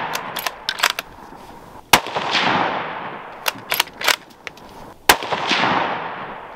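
Two shots from a Ruger American Predator bolt-action rifle in .223, firing brass-cased ammunition, about three seconds apart. Each shot is followed by a long rolling echo that fades over a second or more. Between shots there are quick metallic clicks of the bolt being cycled.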